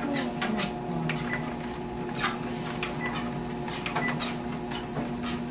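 Home electric treadmill running, a steady motor hum with irregular light clicks and ticks as the belt turns under a dog.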